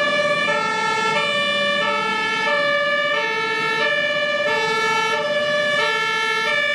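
Electronic two-tone hi-lo siren of a toy fire engine, alternating evenly between a higher and a lower note about twice a second.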